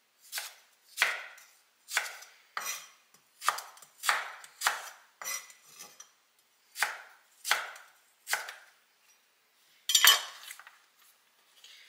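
Chef's knife slicing a raw carrot lengthwise into sticks on a wooden cutting board: a dozen or so crisp cuts about every half second, each ending in a knock on the board. About ten seconds in comes one louder clack as the knife is set down on the board.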